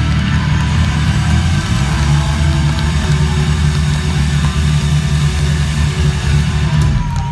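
Live rock band holding a loud, low final chord with heavy bass, cutting off sharply near the end.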